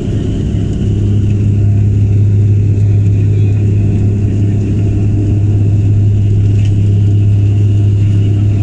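Propeller drone and engine noise of a Bombardier Dash 8 Q400 turboprop at takeoff power, heard inside the cabin during the takeoff roll: a loud, steady low hum that grows a little louder about a second in and then holds.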